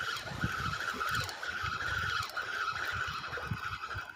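Fishing reel being cranked steadily under load, a continuous whirring whine, as a hooked fish is reeled up to the boat. Gusty wind rumble runs underneath.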